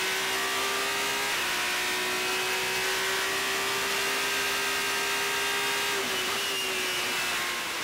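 Single-seater race car engine running at high revs, heard from the onboard camera over wind rush. The engine note holds an almost steady pitch, dips slightly about six seconds in, and starts to fall near the end.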